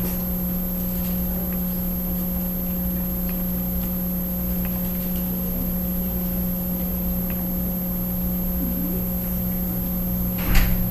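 Steady low electrical hum with a thin high whine, over which faint page-turning ticks and rustles come as Bible pages are leafed through; a brief louder rustle or handling knock comes near the end.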